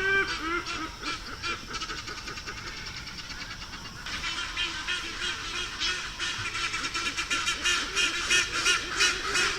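Black-and-white hornbill calling: a rapid run of short, repeated calls that becomes denser and louder about four seconds in.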